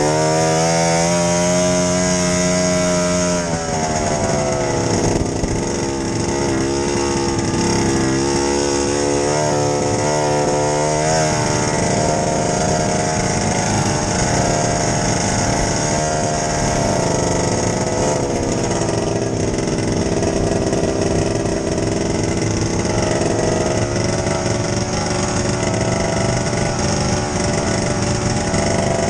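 Ski-Doo snowmobile engine running while the sled travels along a trail. Its pitch holds steady at first, drops about three and a half seconds in, rises and falls with the throttle for several seconds, then settles.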